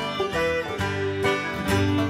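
Live acoustic string band playing an old-time dance tune: fiddle and guitars, with banjo, keeping a steady beat.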